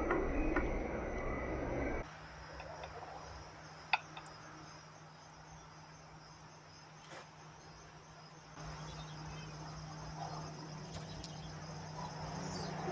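Crickets chirring steadily, a high even trill, over a low steady hum. A louder rustling noise fills the first couple of seconds and stops abruptly, and there is a single sharp click about four seconds in.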